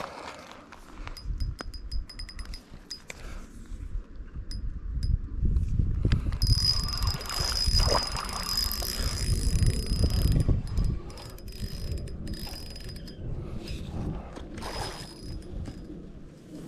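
Fishing reel's drag clicking as a big smallmouth bass pulls line during the fight: a run of rapid clicks, then a longer steady buzz about halfway through, over a low rumble from handling.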